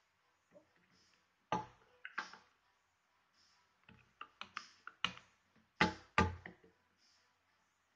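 Metal spoon stirring a slime mixture in a small plastic tub, knocking against its sides and bottom in irregular taps, with two louder knocks about six seconds in.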